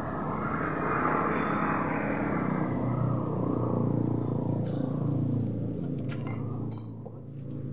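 Motor vehicle engine running, louder over the first few seconds and then easing off as its pitch slides gently down. A few sharp metallic clicks sound near the end.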